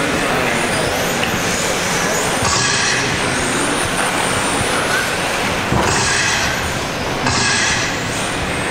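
Electric RC touring cars racing on a carpet track: a steady whine and rush of several cars at once, swelling as cars pass close about two and a half, six and seven and a half seconds in.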